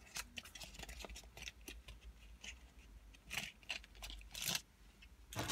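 A nail art brush being taken out of its packaging by hand: scattered light clicks and crinkles, with two louder rustles past the middle.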